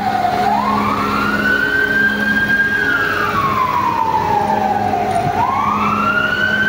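Emergency vehicle siren wailing in slow cycles: the pitch rises quickly, holds high for about a second, then slides slowly down, repeating about every five seconds over a steady low hum.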